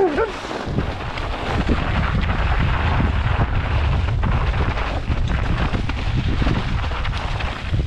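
Wind buffeting the microphone of a helmet camera on a mountain bike riding down a snowy trail, mixed with tyre noise and the bike's rattling clicks over the rough ground. A brief wavering tone sounds right at the start.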